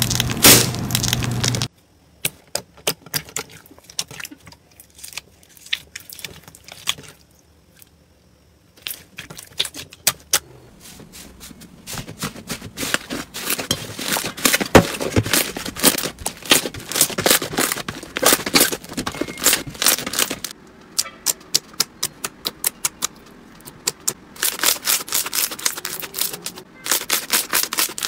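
Crunchy slime being squeezed and poked by hand, giving dense crackling clicks and pops in uneven runs. A short stretch of music plays at the start.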